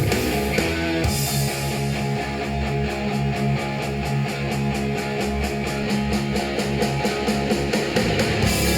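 Instrumental music with guitar and a fast, steady beat, played back through a small desktop studio monitor speaker and picked up by room microphones.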